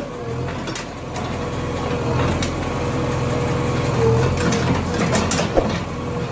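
JCB backhoe loader's diesel engine running steadily with a constant whine while its backhoe bucket digs into broken road rubble. Scattered knocks and scrapes come from the bucket, with a sharp knock about five and a half seconds in.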